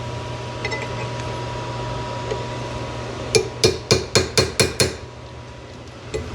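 Hammer tapping a steel hinge pin into a car door hinge: a quick run of about seven metallic taps, four or five a second, about three seconds in, driving a pin that is a tight fit in its bushing. A steady low hum runs underneath.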